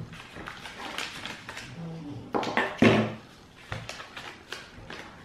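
Table knife cutting through a dark chocolate espresso cup on a paper plate, clicking and scraping against the plate, with paper packaging rustling. A couple of louder knocks come about two and a half to three seconds in.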